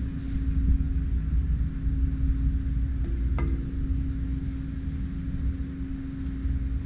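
Hangar background noise: a steady low rumble under a constant hum, with one light click about three and a half seconds in.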